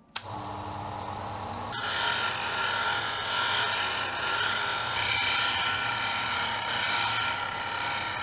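Homemade benchtop belt-and-disc sander's motor switched on and running with a steady hum. About two seconds in, a metal plate's edge is pressed against the spinning sanding disc, adding a loud, high grinding hiss that lasts several seconds.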